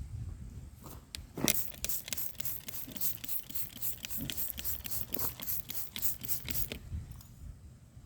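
Trigger spray bottle squirting soapy water onto a tire, a quick run of short hissing sprays, about four a second, that starts about a second and a half in and stops near the end; the soapy water is sprayed on to show a very slow leak by its bubbles.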